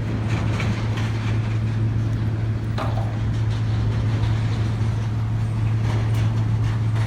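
Steady low drone of an airliner cabin in flight, engine and air-conditioning noise with a constant low hum, with faint voices in the background.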